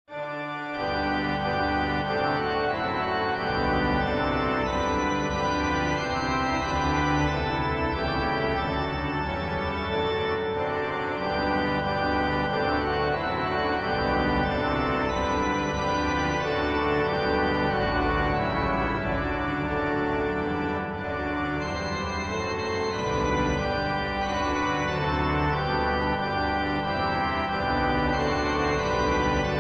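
Organ music: slow, sustained chords over a deep bass, beginning right after a brief break.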